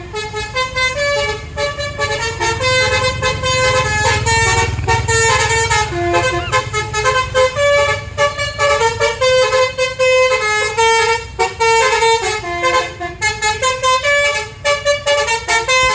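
Basuri 'telolet' multi-tone musical horn on a tour bus, playing a fast tune of short notes stepping up and down, with the bus's engine rumbling underneath.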